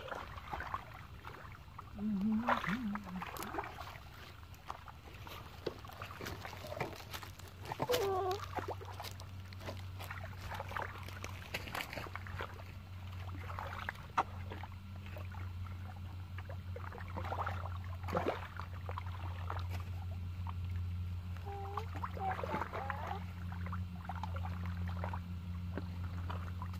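Bare feet and hands wading and stirring in shallow muddy water, with irregular splashes and squelches. From about eight seconds in a steady low hum runs underneath, and a few short calls sound in the background.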